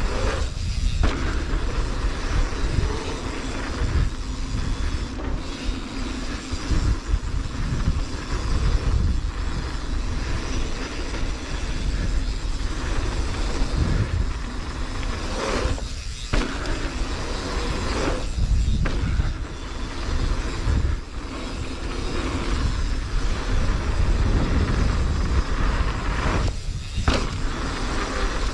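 Wind rushing over the microphone over the rumble and rattle of a mountain bike rolling down a dirt flow trail, with a heavy, uneven low rumble and a few short dips.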